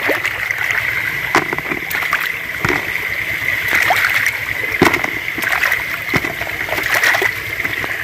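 Shallow muddy stream running steadily, with a hand splashing in the water and small knocks and splashes as plastic toys are picked out of it.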